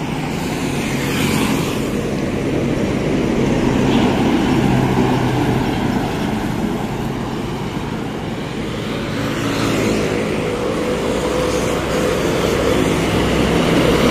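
Highway traffic passing close by: trucks and cars rushing past in a continuous stream, with engine hum swelling as big trucks go by. Near the end a tractor-trailer hauling a shipping container passes close.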